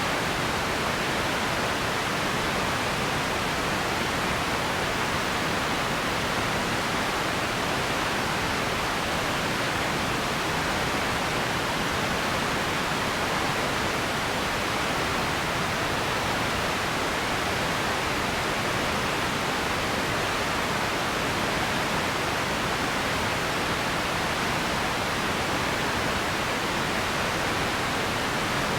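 Radio static: a steady, even hiss that does not change.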